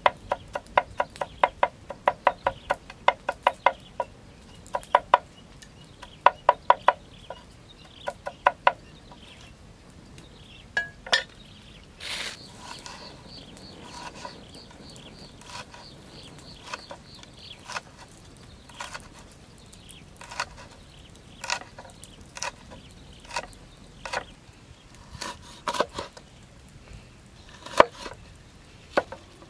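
Cleaver chopping garlic and then chilies on a wooden cutting board: quick runs of sharp chops in the first nine seconds, then sparser single chops, and a cleaver cutting through a lime near the end.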